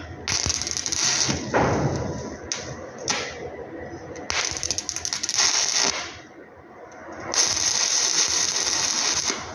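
Stick (arc) welding: the electrode's arc crackling and frying in spells of a second or two, with short breaks and a longer pause a little past the middle.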